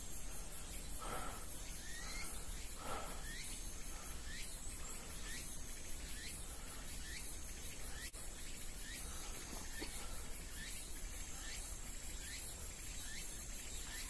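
Insects calling: a steady, rapid high-pitched pulsing with a short curved chirp repeating about every half second or so, and one faint click about eight seconds in.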